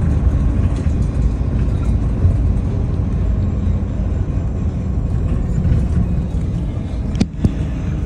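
Daewoo FX116 city bus driving, its engine and road noise a steady low rumble heard from inside the cabin. Two sharp clicks come in quick succession about seven seconds in.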